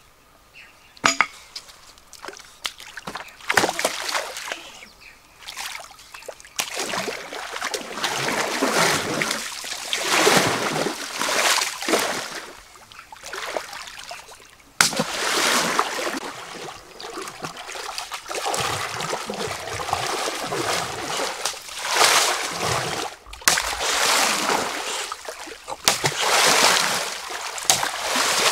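Shallow stream water splashing and sloshing as a long bamboo pole is plunged and beaten into it again and again, in repeated loud bursts that start a few seconds in.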